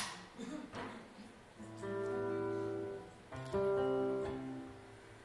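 Acoustic guitar: two chords strummed and left to ring, each for about a second, the second a little louder. A sharp click at the very start.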